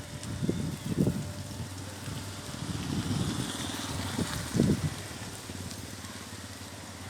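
Heavy wind buffeting the microphone: irregular low rumbling gusts, strongest about a second in and again near four and a half seconds.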